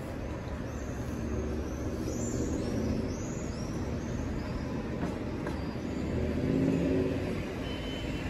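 City street traffic: cars, minibuses and a bus running through a junction, with a Tatra T3 tram moving along its track. A steady rumble swells a little near the end, and short high chirps come two to three seconds in.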